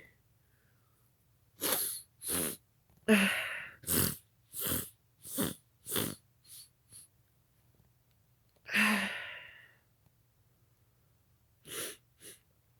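A man sneezing and snatching sharp breaths: a quick run of about nine short, sharp bursts roughly every half second, then one longer, voiced sneeze about two-thirds through, and two short bursts near the end.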